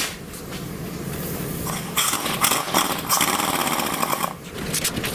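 Orbital sander running on a car hood, sanding off the soft black transport primer down toward bare metal. It gets louder about two seconds in and dips briefly near the end.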